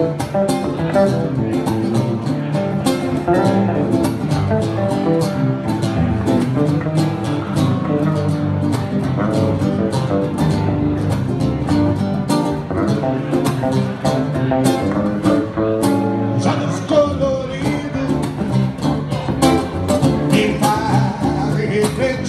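Live band music from a trio of strummed guitar, electric bass and saxophone playing a steady rhythm, with a voice singing at times.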